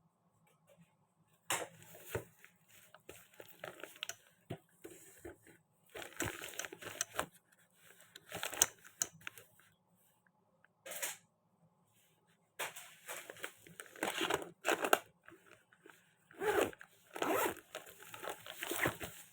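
Intermittent rustling and crinkling handling noise, like plastic or paper being crumpled or torn, coming in bursts of about a second with quiet gaps between.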